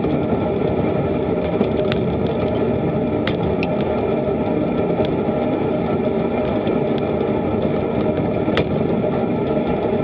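Steady wind and road rumble on a bicycle-mounted action camera riding at about 24 km/h, with a few sharp clicks scattered through it.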